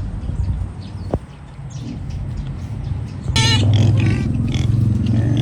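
Pigs grunting, with a loud, high, wavering squeal breaking out about three seconds in, over a steady low hum.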